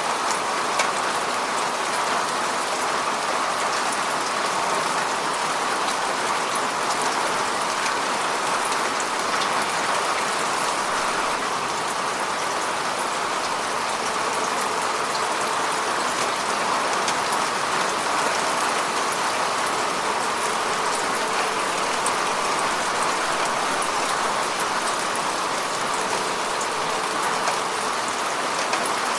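Steady rain falling on the surface of a lake, an even patter with fine drop ticks throughout.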